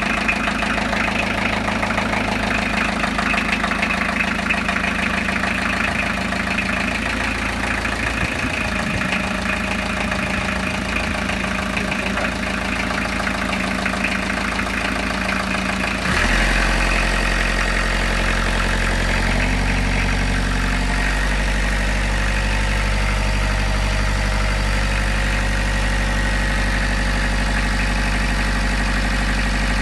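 Narrowboat's inboard diesel engine idling steadily. About halfway through, its note changes suddenly, with a stronger, deeper hum, and it runs on evenly at the new note.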